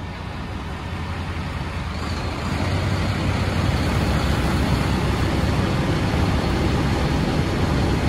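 The yacht's 800-horsepower MAN marine diesel engines running loud through an open engine hatch. They grow louder about two seconds in as the joystick puts more thrust on, then hold steady.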